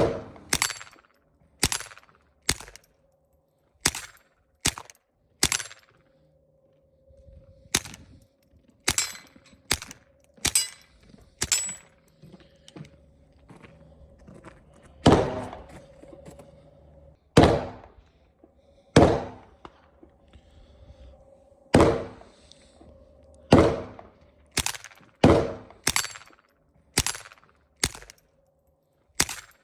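Taurus TX22 .22 LR pistol fired through a Banish 30 suppressor with CCI ammunition: about two dozen suppressed shots fired singly at irregular intervals, some in quick pairs. The shots are amazingly quiet, "movie quiet".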